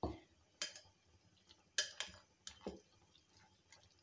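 Metal spoon clinking and scraping against a glass bowl while stirring a wet flour-and-vegetable batter: about half a dozen irregular, fairly quiet clicks and knocks.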